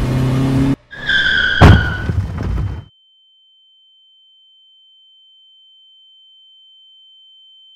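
A car's tyres screech in a skid, and a heavy impact comes about a second and a half in as the car strikes a pedestrian. Then all sound cuts out, leaving a single high, steady ringing tone like ringing ears.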